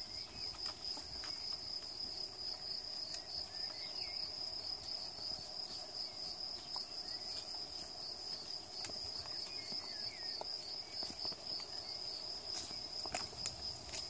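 Insects trilling steadily in a high, finely pulsing chorus, with scattered sharp clicks and rustles from goats browsing on twigs and leaves.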